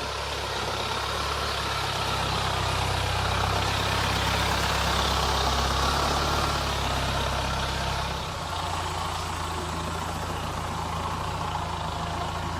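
Mahindra Thar engine running steadily on a rough off-road climb, a little louder in the middle, then easing off and settling to a lower note about eight seconds in.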